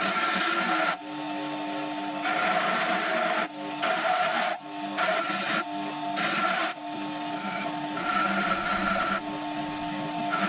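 Angle grinder running steadily while its disc is pressed onto a steel wedge in repeated passes about a second long, the grinding hiss coming and going over the motor's whine.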